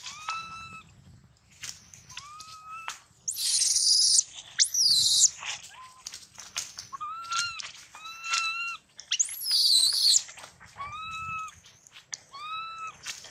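A baby macaque giving repeated short distress calls, each rising then falling, about one a second. Twice, about three seconds in and again near ten seconds, they break into loud, shrill screams. The infant has a bite wound on its leg.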